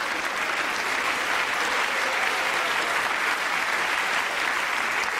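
Audience applauding steadily after a punchline.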